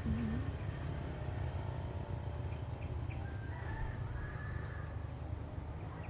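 Steady low rumble, with a faint drawn-out bird call over it from about halfway through.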